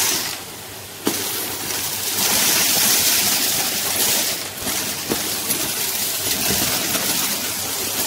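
Numatic Henry canister vacuum cleaner running, its metal wand sucking hamster food and seeds off a wooden floor, with scattered clicks of seeds rattling up the tube. The suction noise drops briefly near the start, then runs louder from about two seconds in.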